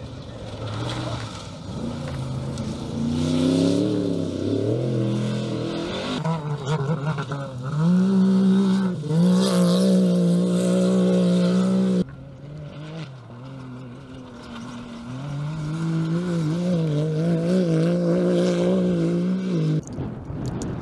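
Desert off-road race vehicles, trophy truck and UTVs, running hard past the camera in several cut-together shots: engine pitch climbing and dropping with throttle and gear changes. The loudest stretch is a long steady high-revving note near the middle that cuts off abruptly.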